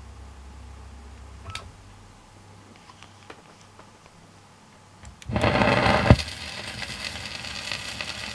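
Low hum with a few faint clicks, then about five seconds in the stylus drops onto a spinning 78 rpm shellac record with a thump. Steady hiss and crackle of surface noise from the lead-in groove follow.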